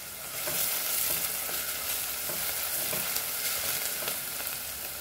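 Chopped onions and whole spices sizzling in hot oil in a stainless steel pot, stirred with a silicone spatula: a steady frying hiss with soft scrapes of the spatula.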